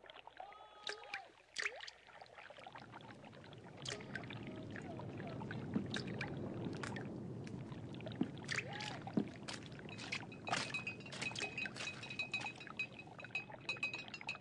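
Stadium crowd noise from an archive football match broadcast: a crowd rumble that swells after a few seconds, dotted with shouts and short sharp sounds, with a high whistling tone held through the last few seconds.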